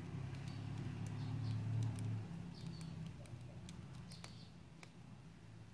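Faint scattered clicks and small squeaks of a precision screwdriver turning the adjustment screw of a trimmer potentiometer on a switch-mode power-supply board, over a low steady hum that fades after about two seconds.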